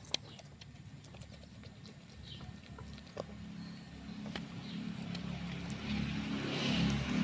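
A motor engine hum that grows steadily louder over the last few seconds, with scattered light ticks and taps.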